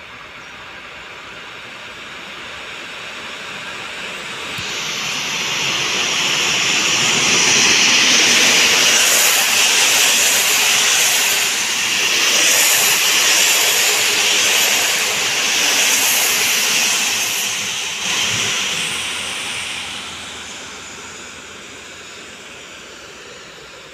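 PKP Intercity passenger train running through the station at speed: a rushing clatter of wheels on rail swells as it approaches, peaks with a beat of pulses about once a second as the coaches go by, then fades as the train moves away.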